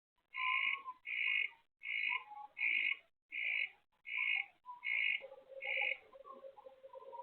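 A night animal calling in a steady series of eight short calls, about one every three quarters of a second, stopping about six seconds in. A lower steady buzz comes in after about five seconds.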